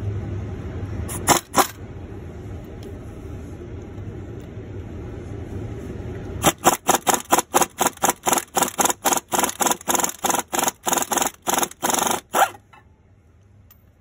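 Pneumatic wrench on an air hose spinning out a fan hub mounting bolt. Two short bursts come about a second in, then a long run of rapid pulsed bursts, about four a second, for some six seconds, which stops suddenly. A low steady hum sits underneath in the first half.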